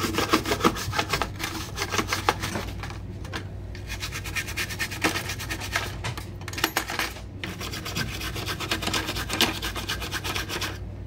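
Rapid rubbing and scraping strokes on a computer motherboard as moisture corrosion is cleaned off it, with a few short pauses.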